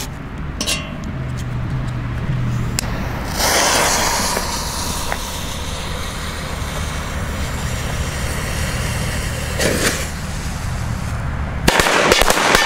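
Funke B firecracker pack set off in a metal frying pan: a single bang about ten seconds in, then a rapid string of loud bangs near the end as the pack goes off.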